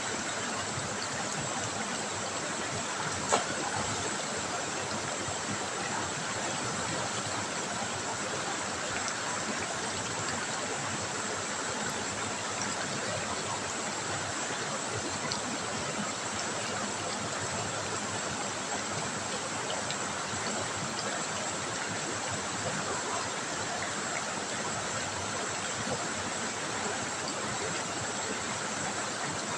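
River water trickling steadily, with one sharp click a little over three seconds in.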